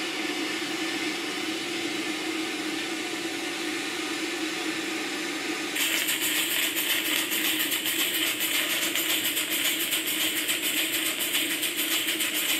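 Steady hiss with a low hum from the model steam boiler plant, then about six seconds in a louder steam hiss with a fast, even beat sets in: the Southworth steam boiler feed pump running on steam and exhausting, pumping water into the boiler.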